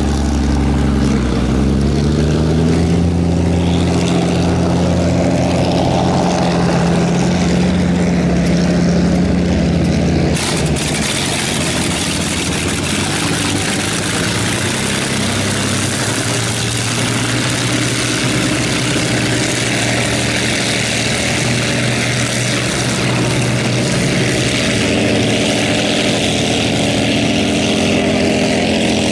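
Vintage hydroplane's Allison V12 aircraft engine running, rising a little in pitch within the first two seconds and then holding steady. About ten seconds in the sound switches abruptly to a wider engine-and-water rush as the boat pulls away, and a second engine note comes in near the end.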